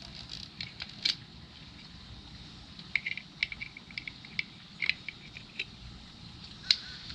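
Scattered sharp metallic clicks and clinks from an unplugged angle grinder as its cutting disc and flange nut are changed by hand with a small wrench, some clinks ringing briefly.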